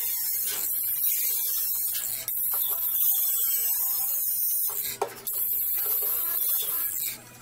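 Cordless angle grinder cutting off protruding bolt ends, a loud, steady, hissing grind of the abrasive wheel on the metal. It runs in three cuts with short breaks about two and five seconds in, and stops just before the end.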